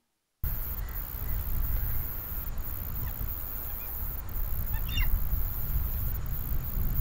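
Outdoor bush ambience beginning about half a second in: a steady high hiss over a low rumble, with a few short, faint bird calls about five seconds in.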